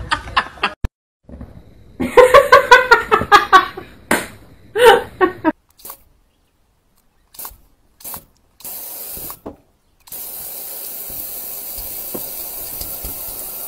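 A run of loud, pitched vocal bursts, then water spraying against window glass with a steady hiss that runs on from about ten seconds in.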